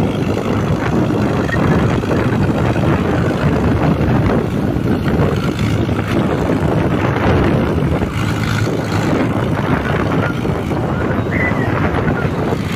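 Mahindra Arjun 605 tractor's diesel engine running steadily under heavy load, pulling a loaded sugarcane trolley of about 450 quintals up a climb. It is heard from a vehicle moving alongside, mixed with steady road and wind noise.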